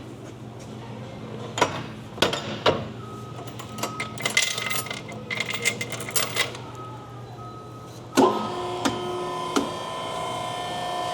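Metal clanks and rattles from a vertical hydraulic cardboard baler, its gate just closed. About eight seconds in comes a loud clunk, then a steady machine hum that keeps going.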